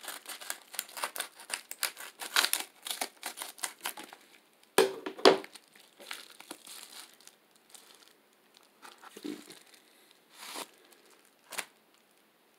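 Kraft paper envelope being torn open and its wrapping crinkled as a graded card slab is unwrapped. Quick crackling and tearing for the first four seconds, the loudest rip about five seconds in, then a few scattered crinkles.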